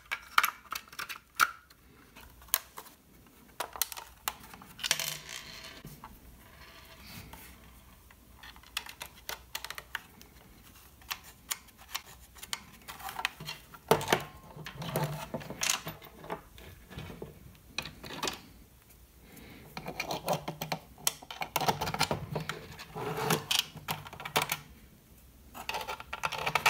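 Hard plastic parts of a Traxxas TQi radio transmitter's case being handled and pressed back together: irregular clicks, taps and small rattles, with a few busier stretches of knocking and rubbing.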